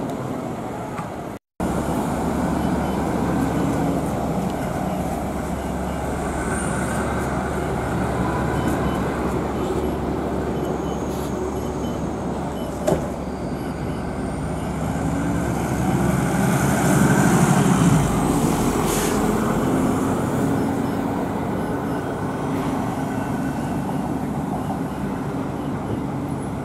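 City street traffic noise with buses running and passing, loudest as a vehicle goes by about 17 seconds in. A single sharp click comes about 13 seconds in.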